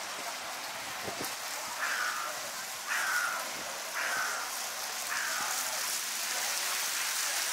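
A crow cawing four times, about a second apart, over the steady hiss of a busy pedestrian street.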